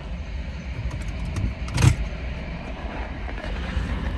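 Steady low vehicle rumble heard from inside a car as the freight train clears a grade crossing, with one sharp thump about two seconds in.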